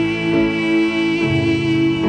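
Instrumental passage of a home song demo with no singing: sustained chords that change about twice.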